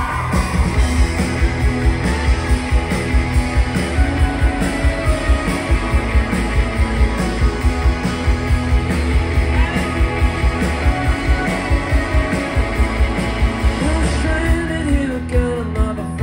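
Rock band playing live, heard from within the crowd: electric guitars over a steady, regular drum beat, with a lead vocal coming in near the end.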